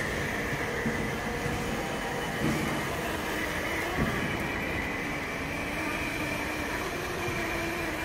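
Autonomous floor-cleaning robot running as it cleans a stone floor: a steady motor drone with a high whine over it. Two brief knocks about two and a half and four seconds in.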